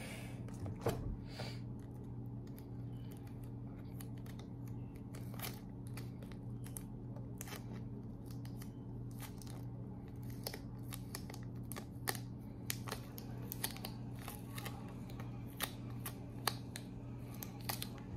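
Small pieces of clear adhesive tape worked between the fingers and rolled into loops to make them double-sided. This gives scattered small crackles and ticks at an uneven pace, a few sharper than the rest.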